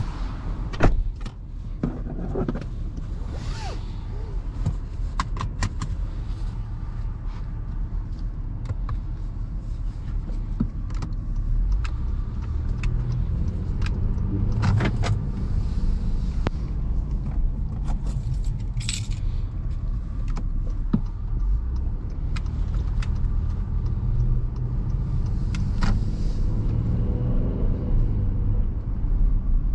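Inside the cabin of a 2020 Honda Pilot Touring: a sharp knock about a second in and scattered clicks and rattles, over the steady low rumble of its 3.5-litre V6 and tyres, which grows as the SUV pulls away slowly.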